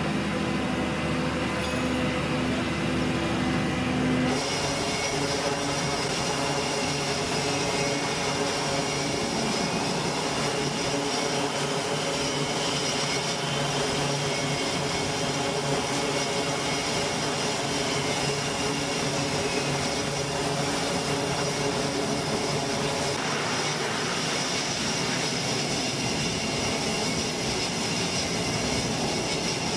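Twin Allison T56 turboprop engines of an E-2 Hawkeye running at high power, a steady propeller drone with several steady tones. For the first few seconds a different steady mechanical hum is heard instead.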